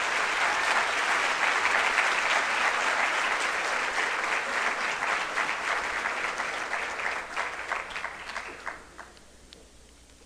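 Audience applauding, steady at first, then thinning to a few scattered claps and stopping about nine seconds in.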